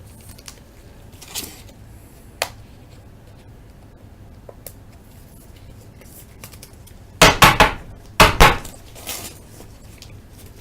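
Baseball cards and their packaging being handled on a table: a few light clicks, then two loud short bursts of clattering rustle about seven and eight seconds in, and a softer one just after.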